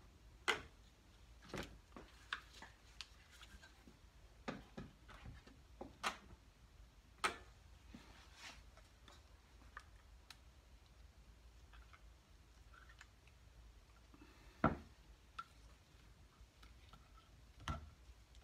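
Scattered light clicks and knocks of a spatula, ink cup and screen frame being handled on a wooden workbench, with a few louder knocks among them.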